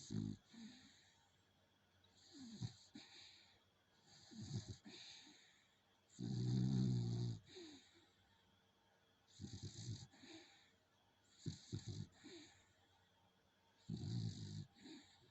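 Dog snoring: a regular series of snores about every two seconds, each a low snore with a breathy hiss. The longest and loudest comes about six seconds in.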